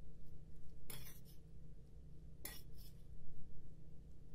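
A metal fork stirring grated kaşar cheese and melted butter in a ceramic bowl, clinking against the bowl a few times.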